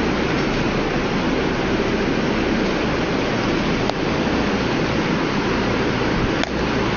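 Steady rushing noise with no pitch, with two faint clicks about four and six and a half seconds in.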